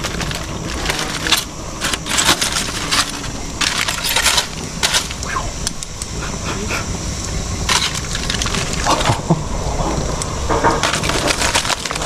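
Irregular crackling and popping from a hot Weber grill cooking a foil-wrapped fish.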